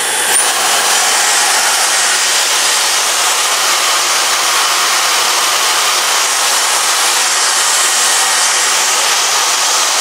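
Dyson Supersonic hair dryer with its diffuser attachment running at raised power: a loud, steady rush of air blowing onto hair. Just after the start there is a brief high rising whine as the power is turned up.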